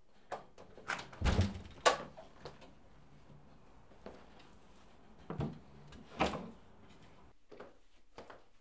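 Clunks and knocks of a glass-panelled front door being unlatched and pulled open, the loudest a second or two in, with two more clunks a few seconds later.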